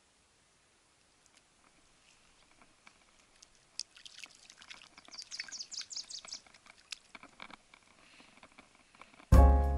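Brief splashing in shallow creek water as a released charr kicks free of the hand and swims off, from about four to seven seconds in. Background music starts suddenly near the end and is louder than the splashing.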